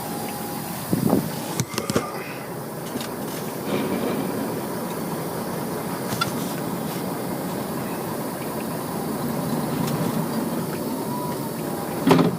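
Heavy machinery running steadily, with a few sharp knocks about a second in and again near the end.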